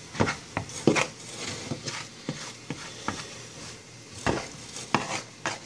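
A cooking utensil knocking and scraping against a frying pan as eggs are stirred, in irregular clicks about once or twice a second.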